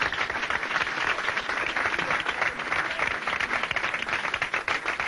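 Audience applauding, a dense, steady clapping from many hands.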